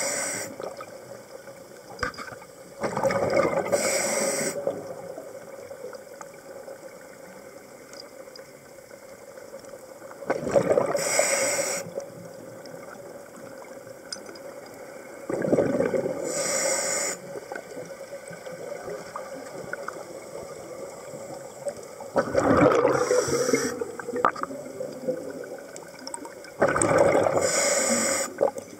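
Scuba diver's open-circuit regulator venting exhaled breath as bubble bursts, heard underwater. Each burst lasts one to two seconds and comes every five to six seconds, with a quieter steady hiss between breaths.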